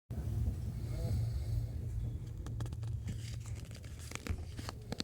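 A passenger snoring on a train, a rough rasping sound over a steady low rumble. A run of sharp clicks and rattles comes in the second half.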